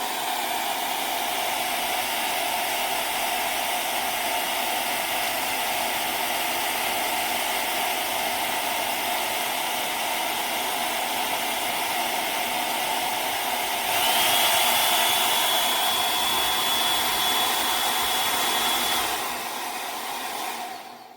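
1400W brushless-motor ionic hair dryer running with a steady blowing hum. About two-thirds of the way through it gets louder, with a high thin whine, for about five seconds, then settles back. It switches off at the end.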